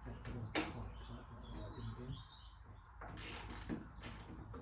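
A bird chirping briefly about a second in. Scattered clicks and knocks sound around it.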